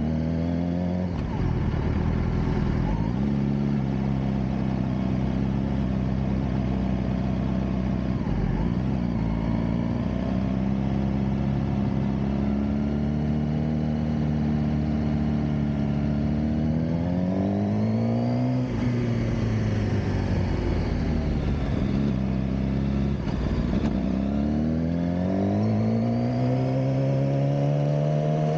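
Suzuki GSX-R600 K7's inline-four engine under way, running a steady note for stretches and then revving up twice in the second half, its pitch climbing and then dropping suddenly as the throttle is eased or a gear is changed.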